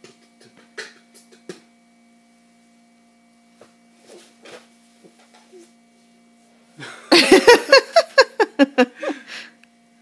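A man beatboxing: a quick run of mouth-made drum hits with voiced tones, starting about seven seconds in and lasting about two and a half seconds.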